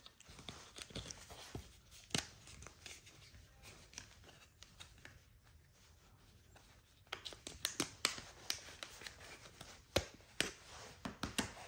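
Plastic and rubber parts of an OtterBox phone case being handled and fitted together: scattered clicks, taps and scuffs, busiest about seven seconds in and again near the end.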